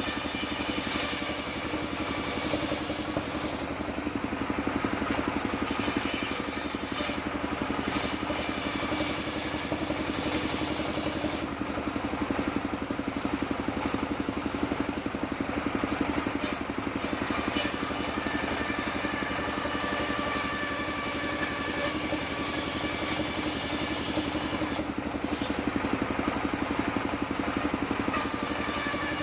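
Stationary engine running steadily, driving a table-mounted circular saw that rips waru-wood planks. The saw's higher cutting tone rises and fades over stretches of several seconds as boards are fed through the blade.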